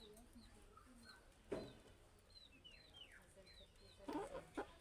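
Budgerigars chirping softly in short, scattered, downward-bending chirps, with one sharp click about a second and a half in and a brief louder burst of chatter near the end.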